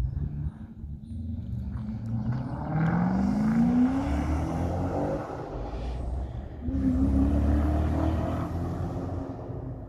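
Ford Mustang V8 with a loud aftermarket exhaust, pulling hard twice: the engine note rises in pitch through the first pull, and a second loud pull comes about four seconds later.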